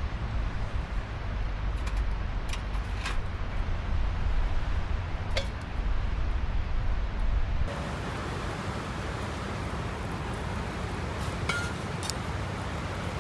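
Wind buffeting the microphone as a heavy low rumble that cuts off abruptly about three-quarters of the way through, leaving a steady hiss, with a few light clinks.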